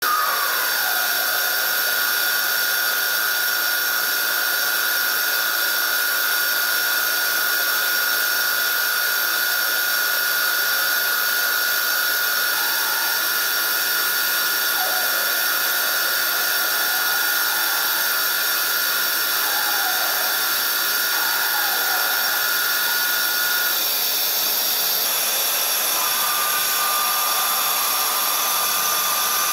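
Hwacheon F1300 friction stir welding machine with its spindle turning the pin tool as it stirs along an aluminium plate. The sound is a steady whine of several held tones over a hiss, and the set of tones changes about 24 seconds in.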